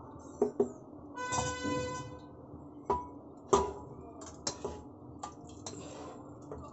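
Wooden spatula scraping and knocking as a thick rajma masala is pushed out of a frying pan into a pressure cooker: scattered clicks and knocks of the spatula and pan against the cooker.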